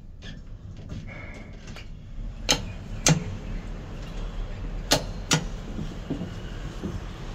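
Fuji foot-pedal passenger lift in operation: a low steady hum sets in about two seconds in, with sharp mechanical clicks in two pairs, the second pair a couple of seconds after the first.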